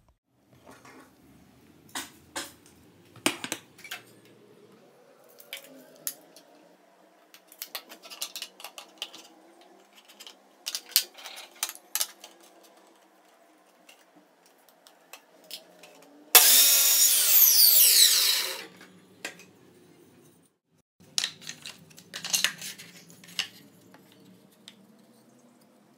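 Scattered knocks and clicks of wooden pieces being handled and set down. About two-thirds of the way in, a miter saw runs for about two seconds as it cuts a small strip of wood, its pitch falling as it stops; this is the loudest sound.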